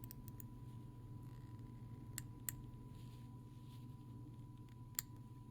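Three faint sharp clicks of small tools against the tiny metal parts of a mechanical watch being taken apart, two close together about two seconds in and one near the end, over a low steady hum and a thin steady high tone.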